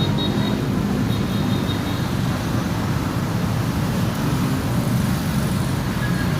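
MIG welder running with its cooling fan and wire-feed motor, a steady low hum, while the trigger is held to feed the welding wire up through the torch.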